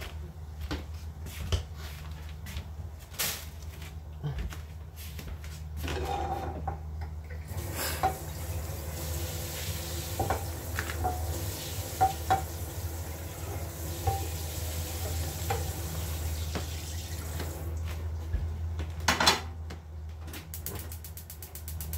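Kitchen dishes and utensils clattering and clinking, with a tap running for about ten seconds in the middle while things are rinsed at the sink. A loud knock comes near the end, then a fast run of clicks, over a steady low hum.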